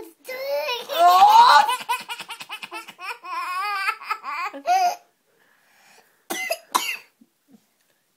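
Toddler laughing hard in a fit of giggles, a long run of quick laugh bursts with a rising squeal, then breaking off. After a pause, two short coughs about six and a half seconds in.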